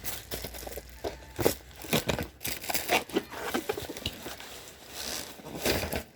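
Packaging being handled and opened: irregular crinkling and rustling with a scatter of small clicks and knocks.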